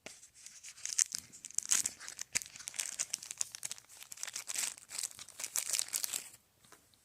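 Packaging crinkling and crackling as it is handled, in quick irregular rustles that stop about six seconds in.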